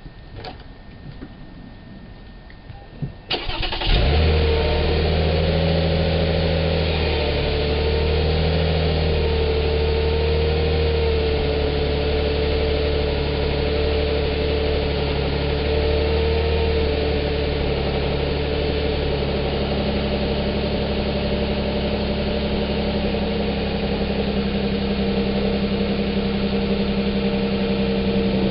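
A few faint clicks, then the 2007 Lexus ES350's 3.5-litre V6 cranks briefly and catches about three and a half seconds in. Heard at the exhaust tips, it then runs at a steady cold-start idle, its pitch shifting slightly twice.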